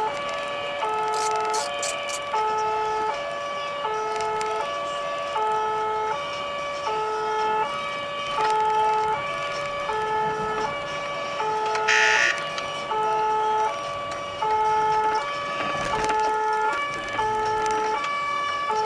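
Two-tone emergency siren on a responding fire-service car, alternating steadily between a low and a high note about every three-quarters of a second, heard from inside the car over engine and road noise. About twelve seconds in, a short hissing burst stands out.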